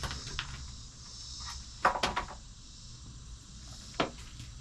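A few short wooden-sounding knocks and clatters, a cluster about two seconds in and one sharp knock near the end, over a steady low background hum.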